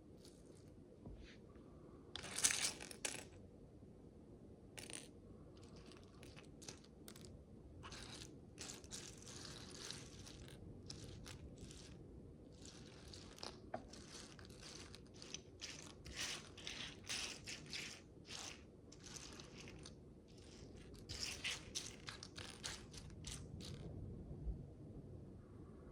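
Micro building bricks, tiny plastic pieces, being handled and pressed together: soft irregular clicks, taps and brief rustles, the loudest cluster about two and a half seconds in.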